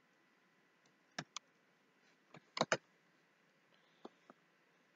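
Sparse clicks from a computer's mouse and keyboard, about seven in all, some in quick pairs, over a faint steady hiss.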